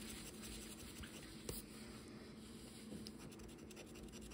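Faint scratching at the coating of a Loteria scratch-off lottery ticket, in short scraping strokes, with a single click about one and a half seconds in and quicker strokes near the end.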